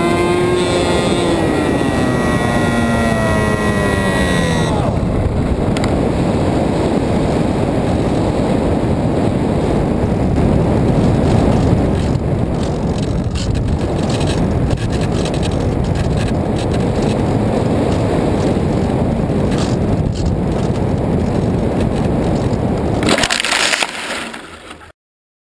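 Camera-on-board sound of an F5J electric RC glider: the electric motor and propeller whine falls in pitch and dies away over the first few seconds, leaving a steady rush of airflow and wind on the microphone as the glider glides. Near the end comes a short rustling crash as it lands in tall grass, and the sound then cuts off.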